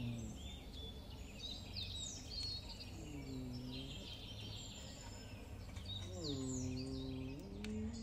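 Budgerigar chatter: quick, high chirps and squeaks keep going throughout. A lower, drawn-out humming tone sounds twice, briefly about three seconds in and for over a second about six seconds in.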